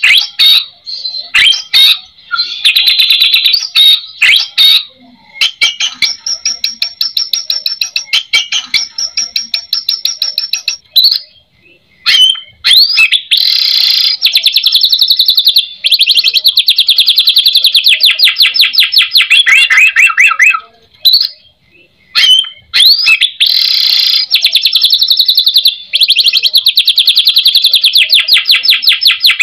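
White-rumped shama (murai batu) singing in long runs of rapid, evenly repeated high notes, the rattling 'kretekan' style, each run lasting several seconds with brief pauses between and some ending on lower notes.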